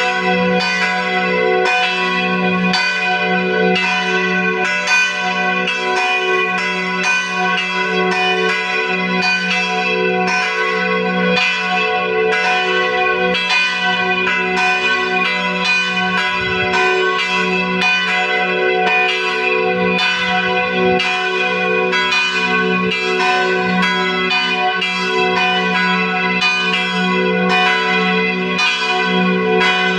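Two church bells ringing together in a steady, unbroken run of strokes, a little more than one a second. Their tones overlap and sustain over a constant low hum.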